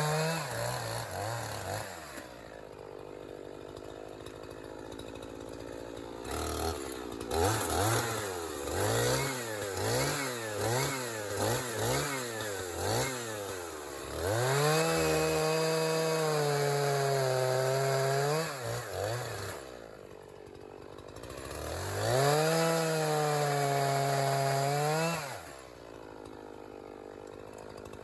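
A 50cc gas chainsaw drops to idle, then is revved in a quick string of about seven throttle blips. It is then twice held at high revs for several seconds, falling back to idle between.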